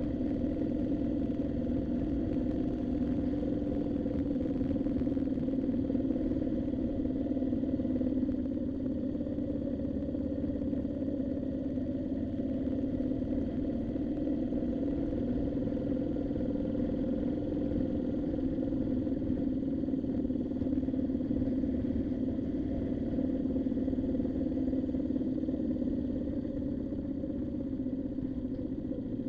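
Moto Guzzi V7's air-cooled transverse V-twin running at a steady pace while the bike is ridden, its engine note even with no big revs, over a low rumble of wind and road noise.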